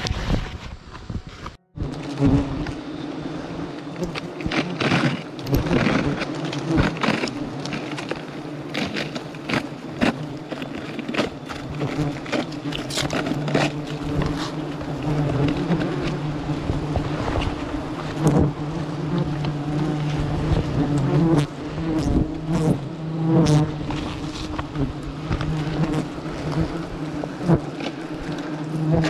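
A swarm of hornets (ong vò vẽ) buzzing in a steady, low drone close around their nest as it is being taken. Frequent short knocks and rustles of handling sound close by.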